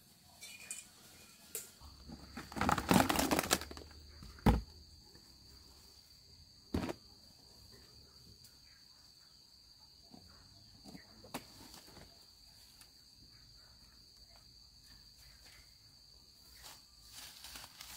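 Steady high-pitched insect drone in forest. About three seconds in there is a loud second of rustling, then two sharp knocks a second or two apart and a few faint ticks.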